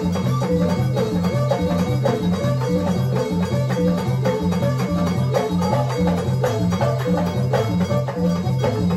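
Live Moroccan folk ensemble playing: frame drums, goblet drum and snare keep a steady, even beat under keyboard and banjo, with hand clapping.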